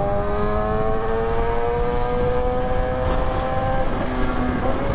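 Sport motorcycle's engine pulling steadily in gear, its note rising slowly as the bike gains speed, with wind rush over the rider's camera.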